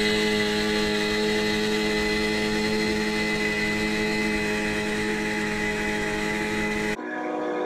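Suzuki tiller outboard motor on an inflatable dinghy running steadily at speed, one even drone over the rush of water and wind. About seven seconds in it cuts off abruptly and ringing music begins.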